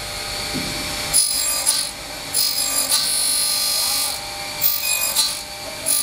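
Circular cutter blade of a uPVC corner cleaning machine cutting into a clamped uPVC window profile: three rasping cuts, about a second or two each, over the steady whir of the running motor.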